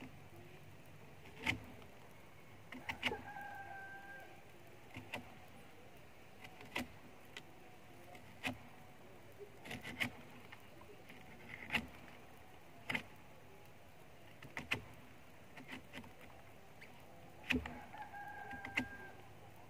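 A rooster crows twice, a few seconds in and again near the end. Irregular sharp knocks or taps, roughly one every second or so and sometimes in quick pairs, come from hand work on a coconut flower spathe bound in coir rope, as when toddy is tapped.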